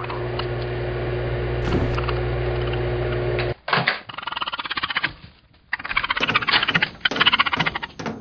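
Microwave oven running with a steady electrical hum that cuts off abruptly about three and a half seconds in. A rapid, pulsing chatter of comic sound effects follows, in bursts with short gaps.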